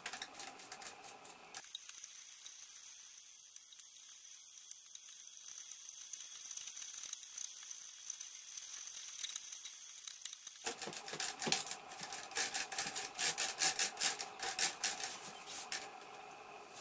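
Small bristle brush scrubbing dirt out from between the keys of a Monroe LN160X mechanical calculator: faint rapid scratchy clicks at first, then several seconds of near silence, then louder, dense scratching and clicking from about ten seconds in until shortly before the end.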